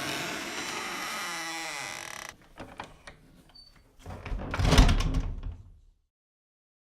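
A door creaking on its hinges in a long, wavering squeal that cuts off about two seconds in, followed by a few light latch clicks and then a heavy thud of the door shutting about four seconds in.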